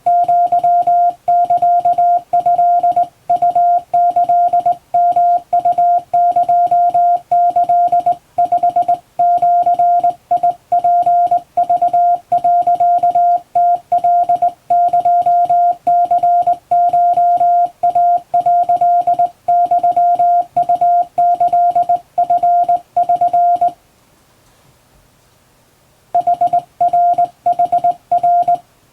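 Hand-keyed Morse code on a vertical straight key: a single steady beep tone switched on and off in dots and dashes, sending Japanese wabun Morse. The keying stops for about two seconds near the end, then resumes.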